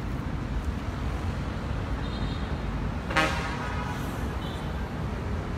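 Steady city traffic rumble, with one short vehicle horn toot about three seconds in.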